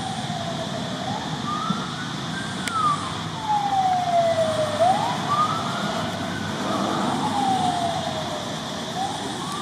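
A wailing siren whose pitch rises quickly and then falls slowly, repeating about every three seconds.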